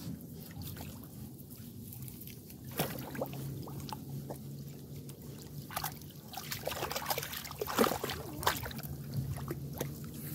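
Bernese Water Dog puppy moving through shallow water and wet reeds at the water's edge: irregular sloshing and splashing with rustling of grass, busiest in a cluster of splashes in the second half.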